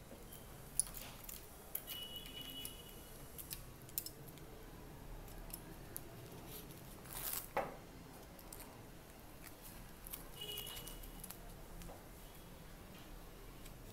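Faint handling noise of green floral tape being wrapped around a flower's wire stem: scattered small clicks and rustles, with a louder rustle about seven seconds in.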